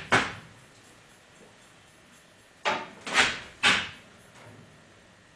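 Four short clattering knocks, one about the start and three in quick succession about three seconds in: the Jeep CJ5 body tub on its wheeled steel cart and the hardtop hanging from a chain fall being shifted into place.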